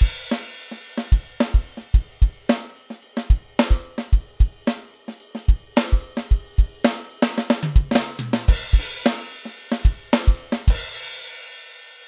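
Sampled acoustic drum kit played from an Alesis Nitro electronic kit, its pads triggering velocity multi-layer samples on a SmartWAV 2 board: a steady groove of kick, snare, hi-hat and cymbals. The playing stops a little before the end on a cymbal that rings out and fades.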